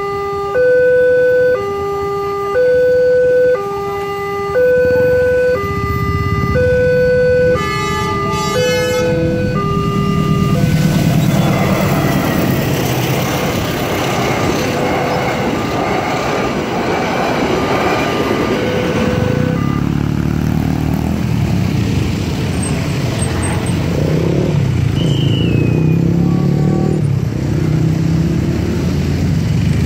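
A level-crossing electronic warning alarm sounds two alternating tones, each held about two-thirds of a second. From about ten seconds in, a passenger train passes and its dense running noise drowns out the alarm. Later the train noise gives way to a lower, uneven engine rumble.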